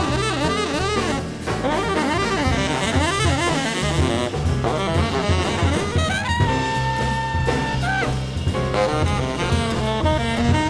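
Tenor saxophone soloing in a live jazz quartet: quick, winding runs, then a long held high note about six seconds in, over piano, double bass and drums.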